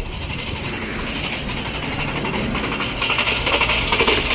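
Starter cranking the 2011 Jeep Grand Cherokee's 3.6-litre V6 over without it firing: a steady, fast churning that gets louder about three seconds in. It is a crank-no-start, with some cylinders getting no spark because their ignition coils are not getting power.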